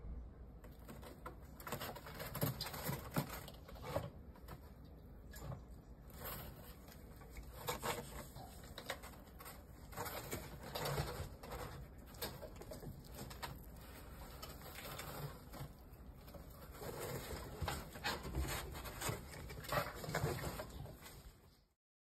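Pet rats nibbling and crunching a treat held in the fingers: irregular small crunches, clicks and rustling, with a few louder bites; the sound fades out near the end.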